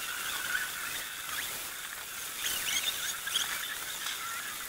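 Short, high squeaky chirps of small birds scattered over a steady hiss of rain, with a busier cluster of chirps about two and a half seconds in.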